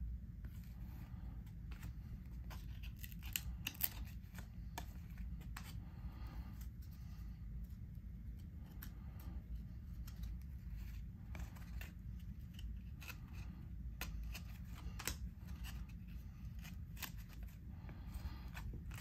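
1993 Skybox Return of Superman trading cards being handled and flipped through by hand: scattered soft clicks and rustles of card against card, over a low steady hum.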